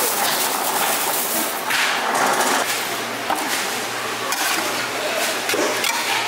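Kitchen utensils knocking and clattering during food preparation at a street-food stall, a string of short sharp knocks over a steady noisy background and a low hum.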